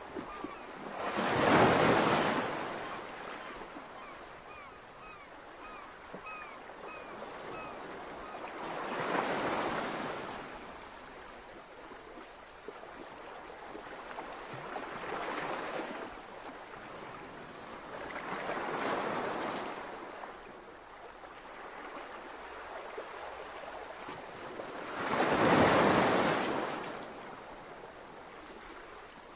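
Sea waves surging and washing in about five slow swells, each building and fading over two to three seconds.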